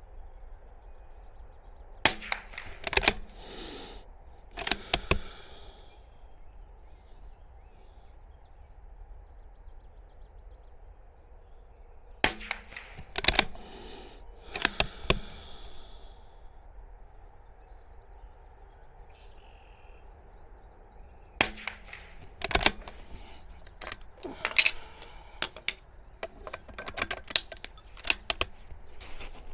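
Suppressed .22 LR Bergara B14 rimfire bolt-action rifle firing, each sharp report mixed with the clicks of the bolt being worked, in three bursts roughly ten seconds apart; the last burst runs on into a longer string of small metallic clicks.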